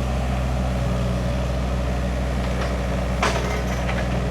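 A small excavator's engine runs steadily. There is a sharp metallic clank about three seconds in, with a few lighter clicks around it, as the machine works dirt.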